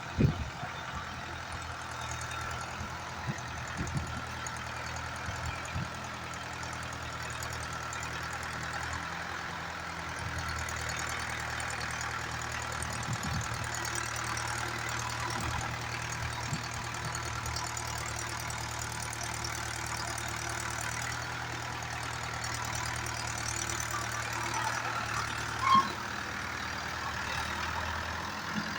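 Mahindra 575 DI XP Plus tractor's four-cylinder diesel engine idling steadily. A short louder sound stands out near the end.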